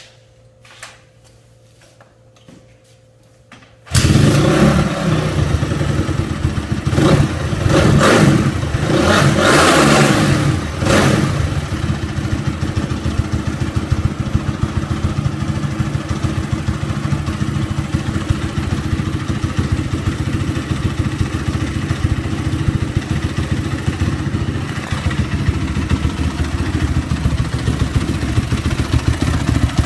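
Freshly rebuilt Honda CRF250R single-cylinder four-stroke dirt bike engine starting about four seconds in after a few faint clicks. It is blipped several times, then settles into a steady idle.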